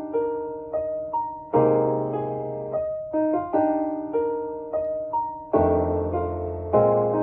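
Solo piano playing an interlude between sung verses of a gospel spiritual: chords struck at a steady, unhurried pace, each ringing and fading before the next, with a deeper, fuller chord about five and a half seconds in.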